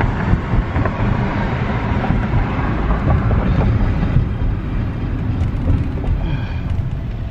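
Road noise inside a moving car: a steady low rumble from the engine and tyres, with a few light knocks.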